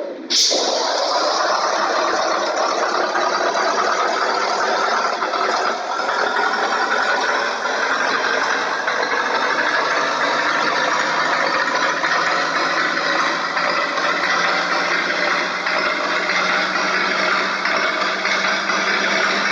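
Large vehicle engine running steadily, its pitch creeping slowly upward, after a sharp click about half a second in.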